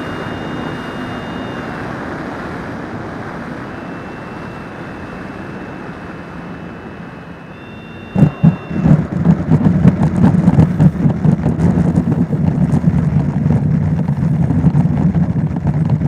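RC model jet's motor whine and rushing air, with thin high tones that step in pitch. About halfway through, a sudden much louder rough rumble with many knocks and clatters takes over and runs on until the sound cuts off.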